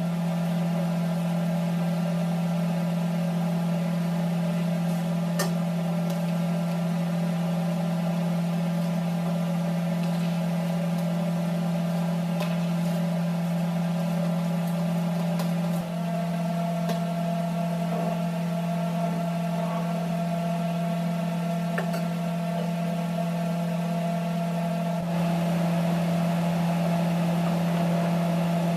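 A steady, strong low hum with many overtones, like an electric motor or appliance running, with a few faint clicks. The hum's character shifts slightly twice.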